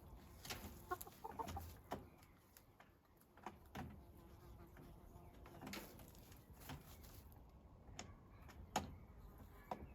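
Hens clucking softly now and then, amid scattered short scratching clicks, as the chickens dust-bathe.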